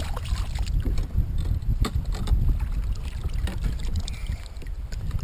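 Wind buffeting the microphone with a steady low rumble, over splashing as a hooked codling thrashes at the surface beside a kayak and is scooped into a landing net and lifted from the sea. Most of the splashing comes in the first couple of seconds.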